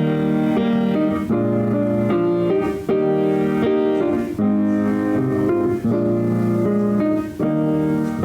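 Slow instrumental music on a keyboard: a run of held chords that change about once a second, with a brief dip between some of them.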